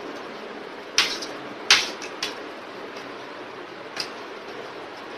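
Metal spoon clinking against a ceramic plate while scooping rice: four sharp clicks, the loudest a little under two seconds in, over a steady hiss.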